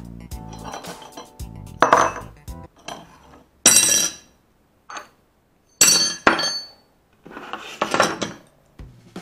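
A series of sharp metallic clanks and clinks as aluminium parts and hand tools are set down and moved on a hard table, with short quiet gaps between the knocks. Background music plays in the first second or so.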